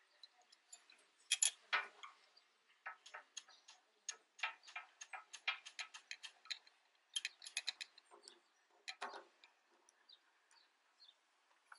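Faint, sharp metallic clicking in short irregular runs from a hand ratchet being worked back and forth while the fuel tank's front mounting bolts are undone.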